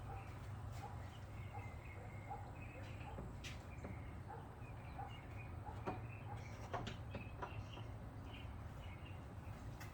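Faint background of short bird chirps over a steady low hum, with a few light sharp clicks about three and a half, six and seven seconds in.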